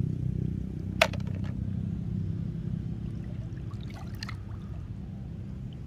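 Shallow water trickling and lapping over a steady low hum, with one sharp click about a second in.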